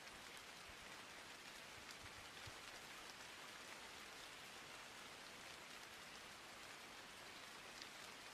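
Near silence: a faint, steady hiss with no voice or music.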